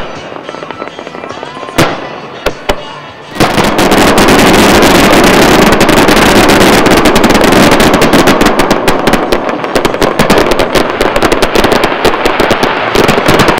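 Fireworks display: a few separate bangs, then from about three seconds in a dense, loud barrage of rapid bangs and crackling that cuts off abruptly at the end.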